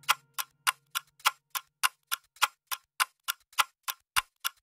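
Clock ticking sound effect marking the baking time: sharp, evenly spaced ticks, about three and a half a second. The last of the background music fades out in the first second or so.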